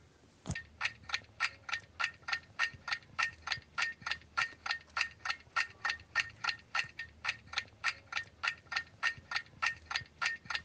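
Ticking-clock sound effect: an even run of sharp ticks, about three a second, starting about half a second in and marking a countdown of answer time.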